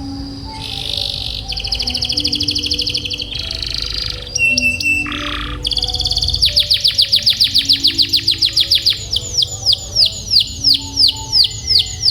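Domestic canary singing: a fast, high trill, then a long roll of repeated downward-sliding notes that slows toward the end.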